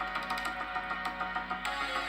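Instrumental background music: a steady run of short, repeated pitched notes with light high ticks, the texture shifting about one and a half seconds in.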